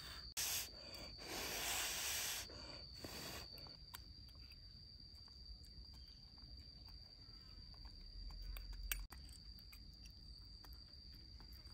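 An insect trilling steadily on one high note. A few short bursts of hissy noise come in the first three to four seconds, then only faint scattered clicks.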